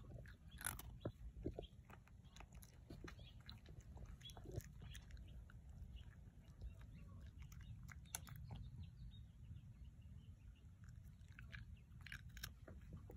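Orange tabby cat chewing crunchy Temptations cat treats: faint, irregular crunches and clicks, over a low steady hum.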